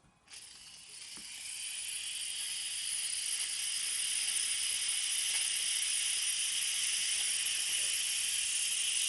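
Instant Pot electric pressure cooker doing a quick release: steam hissing out of the pressure-release valve. The hiss starts just after the beginning, grows louder over the first few seconds, then holds steady.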